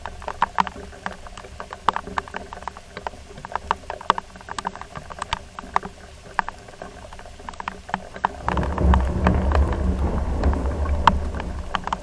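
Large raindrops popping as they strike near the microphone, scattered sharp clicks at the start of a summer storm. About eight and a half seconds in, a deep rolling rumble of thunder comes in and grows louder than the popping.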